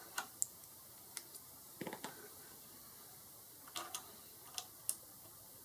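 Scattered faint plastic clicks from a mechanical keyboard keycap, fitted with a rubber O-ring, being pressed back onto its switch and handled, with a duller knock about two seconds in.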